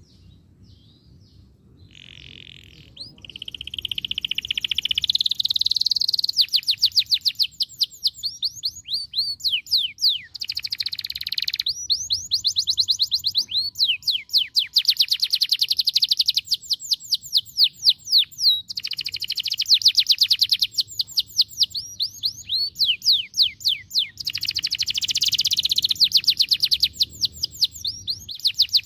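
Domestic canary song: long, fast trills of rapidly repeated high chirping notes in changing phrases, beginning softly and building a couple of seconds in, with brief pauses between tours.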